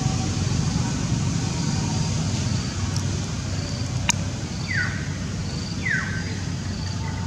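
Outdoor ambience with a steady low rumble. A sharp click comes about four seconds in, followed by two short falling chirps about a second apart.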